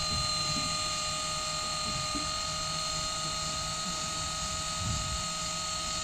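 Electric fishing reel's motor winding in line with a hooked fish on, a steady high-pitched whine of constant pitch over a low rumble.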